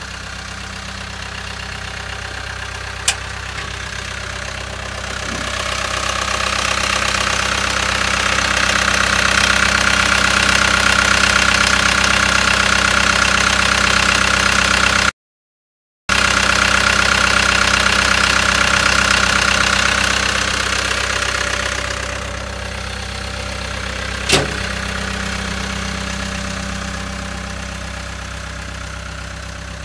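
Cat 252B skid steer loader's diesel engine running steadily. For about fifteen seconds in the middle it grows louder with a whine, then eases back. There are two sharp clicks, and the sound cuts out completely for about a second midway.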